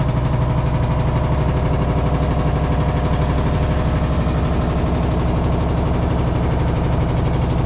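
Hitachi SF-150TCV top-load washing machine spinning, a steady, really loud mechanical noise with a fast, even rattling pulse coming from inside the tub. The owner suspects the tub's shaft is off-centre or not locked tight, letting the tub wobble.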